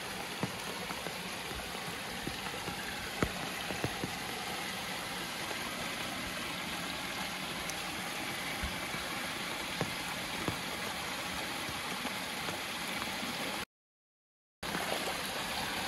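Steady rush of flowing stream water, with scattered faint clicks. The sound cuts out completely for about a second near the end.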